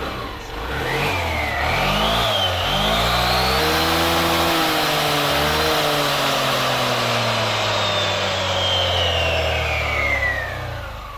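Yamaha NMAX scooter engine being revved with the CVT cover off, so the belt and pulleys spin in the open. The pitch climbs over the first few seconds, holds high and steady, then falls back near the end as the throttle is released. This is a test run of the newly set-up CVT transmission.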